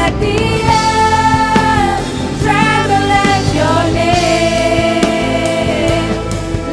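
Christian worship song: a solo voice sings long, sliding held notes over keyboard chords and a light steady beat.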